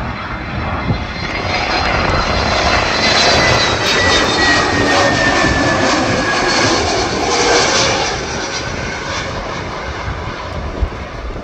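Twin turbofan engines of an Iberia Airbus A320-family airliner passing low overhead on final approach to land, gear down: a steady jet rumble with a whine that falls in pitch as it goes by, loudest around the middle and easing off near the end.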